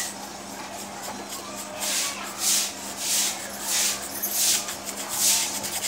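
Bristle paintbrush scrubbing paint onto a stretched canvas: a run of scratchy back-and-forth strokes, about one and a half a second, over a faint steady hum.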